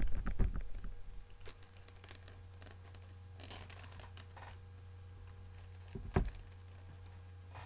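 Packaging noise from an iPad box being opened by hand: light clicks and scrapes, a brief crinkling rustle about three and a half seconds in, and a soft knock near six seconds.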